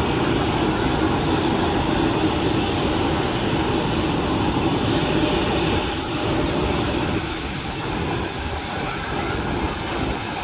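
Jet airliner engines at taxi power, a steady rushing hum with a low drone that eases a little about halfway through.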